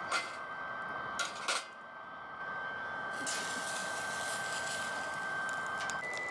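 Metal camp cookware clinking: three quick knocks in the first second and a half. Under it runs a steady high whine that jumps up in pitch near the end, and a hissing rush comes in about three seconds in.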